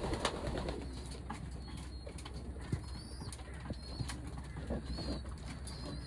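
Racing pigeons cooing in a loft, with a few light taps and scuffs as the birds move about and faint high chirps now and then.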